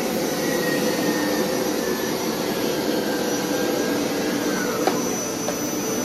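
Hoover Power Scrub XL carpet cleaner running: a steady motor whir with a thin high whine that holds level throughout.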